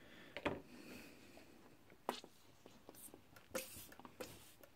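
Faint handling sounds on a wooden desk: a handful of scattered soft knocks and clicks with a couple of brief hissy rustles as tools and a bottle are picked up and put down.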